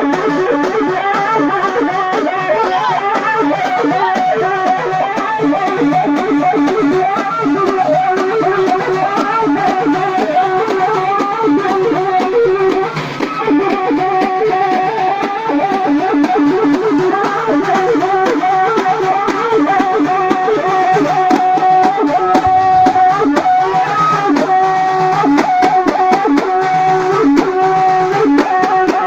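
Allaoui folk dance music: a fast, busy melody of quick notes playing continuously, with a brief dip about thirteen seconds in.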